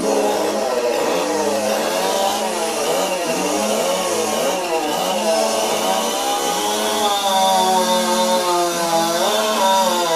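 Modified competition chainsaw running at high revs and cutting wood, its pitch wavering up and down again and again, with a steady low tone underneath.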